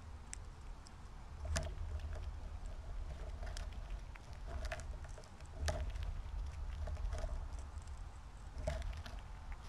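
A squirrel rummaging and eating in a tray of mixed bird seed close to the microphone, with scattered sharp clicks and seed rattling over a steady low rumble.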